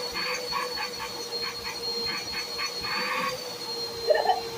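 Bissell CleanView Compact Turbo upright vacuum running with the hose drawing air for a suction test: a steady motor hum with a high whistle over it, and a rapid uneven flutter for about the first three seconds.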